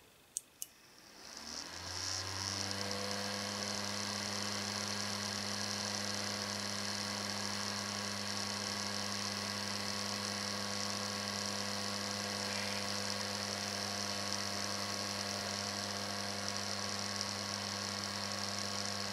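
Two short clicks, then a desktop PC's power supply and CPU cooler fans spin up, rising in pitch over about a second, and run on with a steady hum and hiss as the bare motherboard is powered on.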